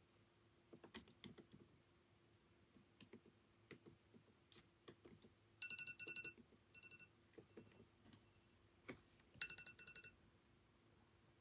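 Faint, irregular keystrokes on a computer keyboard, with short rapid electronic beeps in two spurts, one about halfway through and one near the end.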